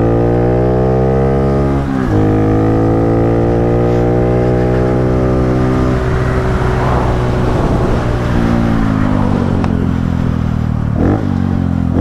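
Honda Pop 110i's small single-cylinder four-stroke engine running under way, loud through an aftermarket exhaust with the air filter removed. Its pitch breaks and climbs again about two seconds in and again near the end.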